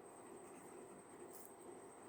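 Faint steady high-pitched cricket trill over a low fan hum, with one brief pen-on-paper scratch a little past the middle.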